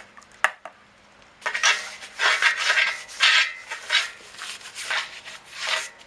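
More lubricant going onto a dirt bike tire's bead: a run of short hissing strokes, about a dozen in four seconds, after a single click about half a second in.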